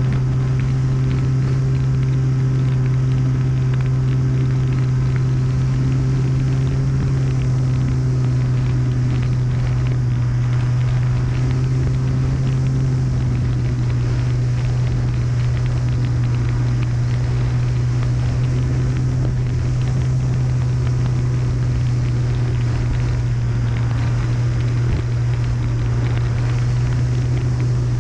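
Onboard sound of an electric RC model plane in flight: its Sunnysky 2216 brushless outrunner motor and propeller drone at a steady pitch, under an even rush of air past the airframe.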